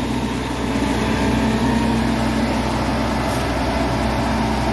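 Diesel engine of a Western Star hi-rail grapple truck running steadily close by, a constant low drone.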